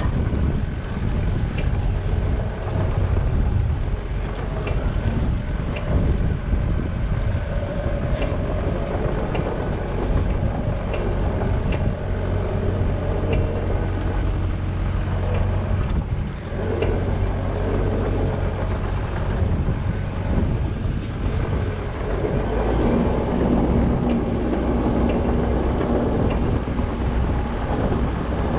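Backhoe's diesel engine running steadily, its note shifting a few times as it works.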